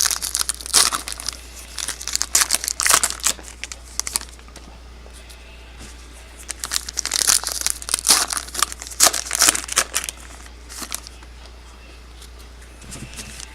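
Trading card pack wrappers being torn open and crumpled by hand: two spells of crinkling and tearing, each a few seconds long, with quieter pauses between them.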